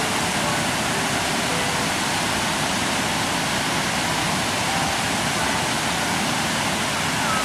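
Mountain stream rushing over rocks in a steady, loud whitewater roar.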